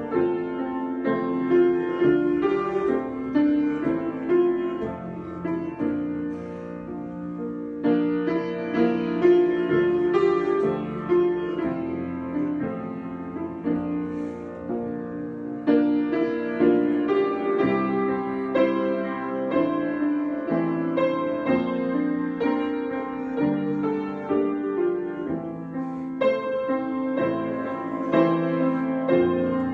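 Solo piano improvisation, a steady flow of overlapping notes and chords that swells and eases in loudness.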